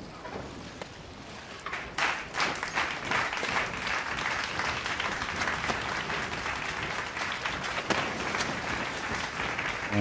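Crowd applause: dense, even clapping that comes in abruptly about two seconds in over a faint hiss and keeps going steadily.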